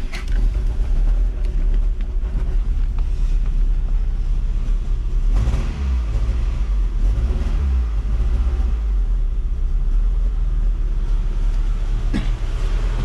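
1991 Toyota Celica GT's four-cylinder engine running steadily just after catching. This is its first start on freshly fitted replacement fuel injectors, after the emptied fuel system had to be primed.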